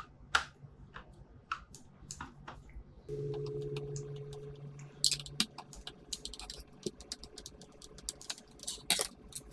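Small clicks and ticks of a Phillips screwdriver working screws out of the plastic housing of a Dyson V10 cordless vacuum, with plastic parts knocking lightly. A steady low hum joins for a couple of seconds about three seconds in.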